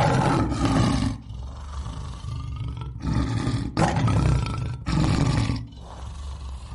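Lion roaring: several deep roars, each about a second long, with short breaks between them.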